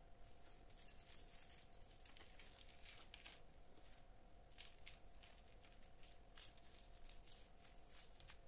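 Near silence with faint, irregular soft ticks and rustles: a cinnamon and brown sugar mix being sprinkled by a plastic-gloved hand onto puff pastry rings and parchment paper. A faint steady hum runs underneath.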